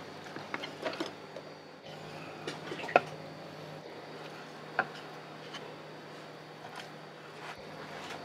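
Kitchen clatter: scattered light clinks and knocks of dishes and utensils, the sharpest about three seconds in and another near five seconds, over a steady low hum.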